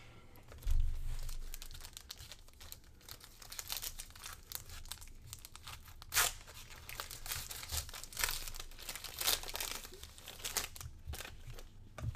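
A basketball trading card pack's wrapper being torn open and crinkled by hand, in a run of sharp crackles. A dull thump about a second in.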